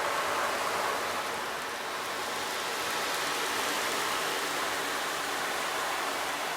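Steady hiss of running water from a relaxation soundscape, even and unbroken, with faint low steady tones underneath.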